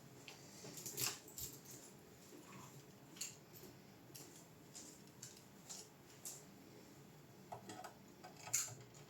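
Scattered light clicks and taps at irregular intervals, the loudest about a second in and another near the end.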